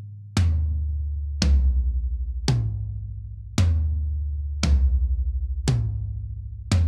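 Mixed recording of 13-, 16- and 18-inch Gretsch Renown toms with clear Emperor batter heads tuned low, resonant heads slightly higher. They are struck one at a time, seven single hits about a second apart, moving between toms, and each hit is followed by a long, low ring.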